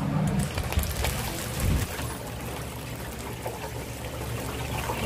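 Chicken deep-frying in hot oil, a steady sizzle, with a dull low thump a little under two seconds in.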